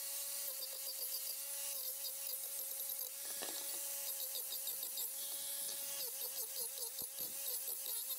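Angle grinder running with a sanding disc over the face of a wooden board, sanding it. Its motor whine holds steady, then dips briefly in pitch again and again as the disc is pressed onto the wood, most often in the second half.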